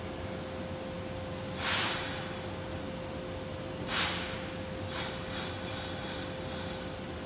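Compressed-air hisses from Kobe Municipal Subway trains standing at the platform: two loud blasts of air, then a quick run of about six short hisses, over a steady hum with one high tone.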